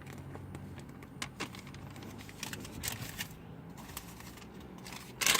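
Handling noise: scattered light clicks and soft rustles, with a louder rustle just before the end.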